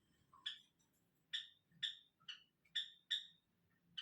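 A small bird chirping over and over, short sharp calls at about two a second.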